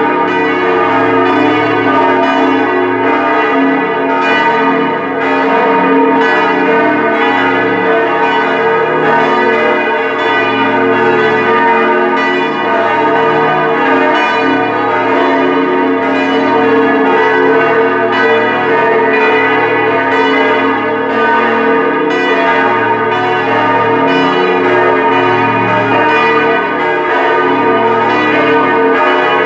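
Church bells from a four-bell Grassmayr peal tuned B♭, E♭, G♭, A♭ (B°, es', ges', as'), swinging and ringing together in continuous overlapping strikes. This is a call to Mass.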